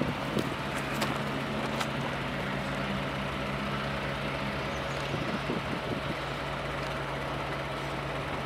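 Distant Alco S6 switcher locomotive's six-cylinder diesel engine running as it approaches slowly, a steady low drone.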